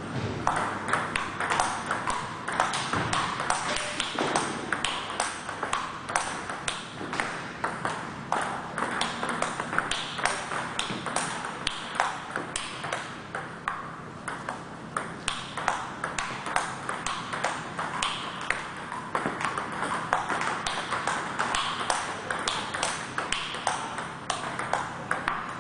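Table tennis ball in a continuous rally: a steady run of sharp clicks as the celluloid-type ball strikes the rubber-faced bats and bounces on the table, several hits a second.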